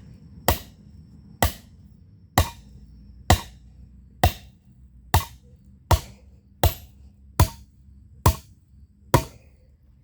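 Hammer blows on hot steel from a shovel blade being forged into a pan, about one strike a second with eleven in all, each with a short metallic ring.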